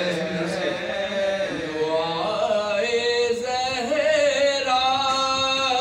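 A group of men chant an Urdu salam in soz-khwani style, with voices only and no instruments. The lead voice holds long, wavering notes while the others sing along with him.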